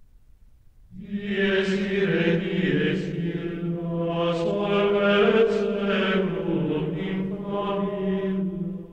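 Low-pitched ritual-style chanting in slow, held notes that step up and down in pitch, beginning about a second in.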